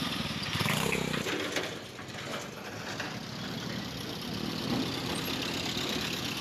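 Road traffic: car engines idling and running, with a few short knocks.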